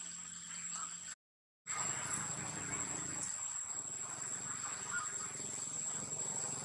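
Insects droning with a steady high note over outdoor ambience; the sound cuts out completely for about half a second a little after the first second.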